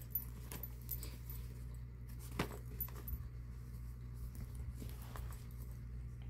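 Faint clinks of a crossbody strap's metal clasps and rings and soft rustling of a denim tote bag being handled, with one sharper click about two and a half seconds in, over a steady low hum.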